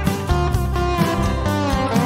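Background music led by a guitar, over a bass line and a steady beat.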